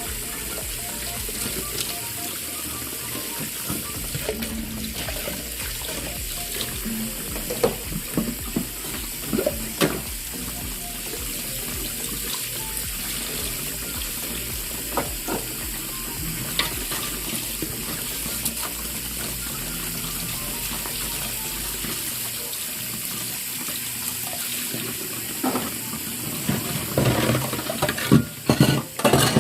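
Kitchen tap running into a sink during dishwashing, with dishes and utensils clattering now and then and a busier run of clatters near the end.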